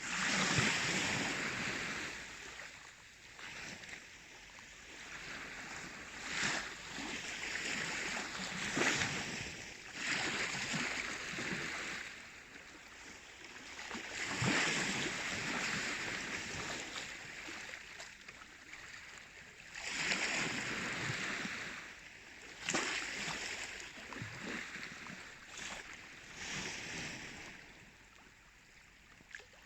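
Baltic Sea waves breaking and washing in, a rushing sound that swells and fades in uneven surges every few seconds.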